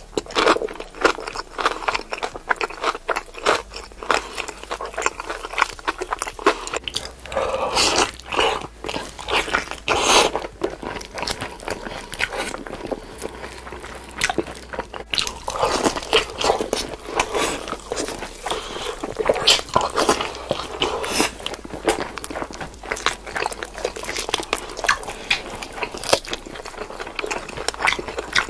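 Close-miked eating of fried chicken: crunchy bites and chewing, a dense run of irregular crackles and clicks with no breaks.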